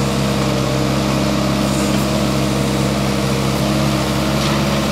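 Kubota KX161 mini excavator's diesel engine running steadily under load as the machine digs and lifts a bucket of soil.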